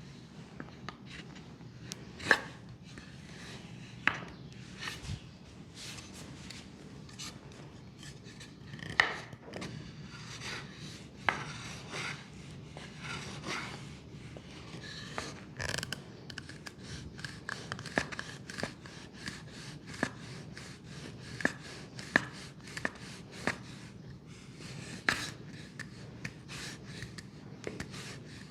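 Leg massage: hands rubbing over skin, broken by sharp slaps and taps. In the second half the taps quicken to a fast run of light strikes, about three a second.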